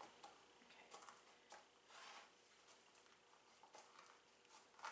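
Faint, irregular taps and scrapes of a pestle in a small mortar, coarsely crushing whole spices: juniper berries with fennel seeds.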